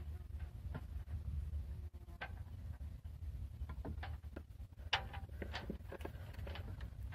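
Sailboat under way in light air: irregular soft clicks and knocks from the hull and rigging over a low steady rumble, with the sharpest knock a little before the middle.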